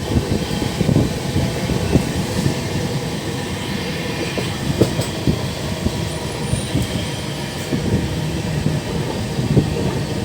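Steady low rumble of a moving vehicle, with frequent irregular knocks and rattles.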